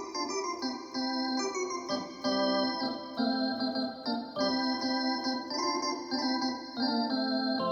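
Yamaha DX7 FM synthesizer playing an organ-like patch: sustained chords with a bright, bell-like upper edge, changing about once a second.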